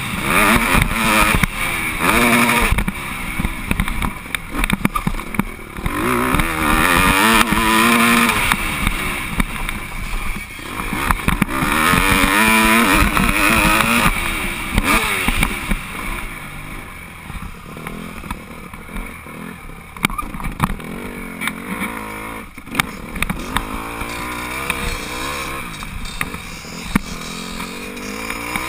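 Dirt bike engine ridden hard on a motocross track, its revs climbing and dropping again and again. Louder over the first half, easing off in the second, with scattered knocks.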